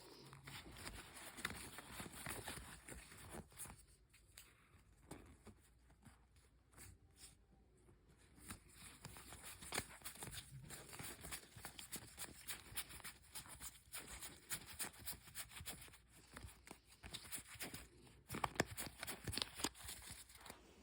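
Faint rustling and scattered light clicks and taps of card-game components and packaging being handled.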